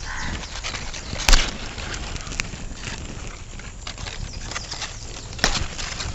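Leaves rustling and hands working among a pointed-gourd vine as the gourds are picked, with a sharp snap about a second in and another near the end.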